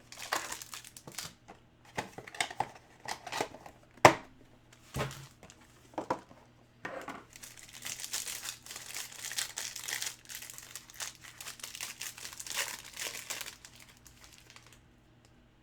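Plastic wrapping on trading card boxes and packs being torn open and crumpled, a busy crinkling with many small snaps. One sharp knock stands out about four seconds in.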